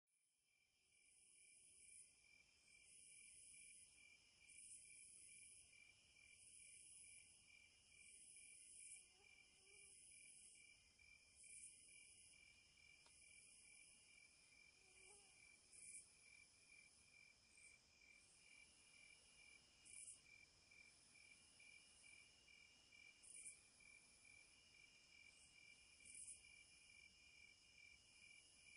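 Faint insect chorus: a steady, fast-pulsing trill, with higher buzzing phrases that repeat every couple of seconds and come further apart in the second half.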